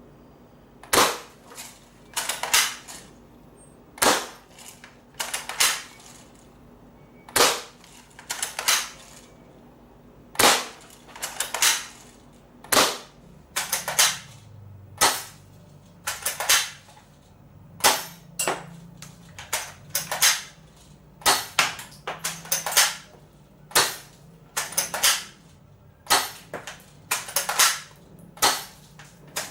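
A&K SVD Dragunov spring-powered bolt-action airsoft rifle being fired repeatedly. Each sharp shot is followed by a quick cluster of clicks as the bolt is cycled to re-cock the spring, repeating every two to three seconds.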